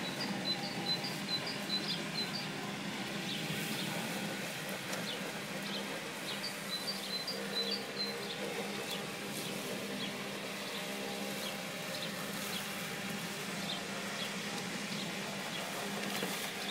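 Robomow RS630 robotic lawn mower driving over grass, its motors giving a steady buzzing hum. A bird sings two quick runs of short high chirps, near the start and again about six and a half seconds in.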